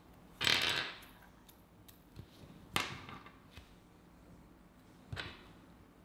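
Three short clicks and rubs of small plastic and metal parts, the first the loudest and longest, the others about two and a half seconds apart: fingerboard wheels, bearings and trucks being handled and fitted together by hand.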